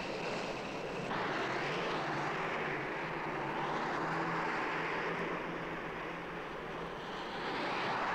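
Steady rushing roar of motor traffic driving through a road tunnel. It comes in about a second in and swells again near the end.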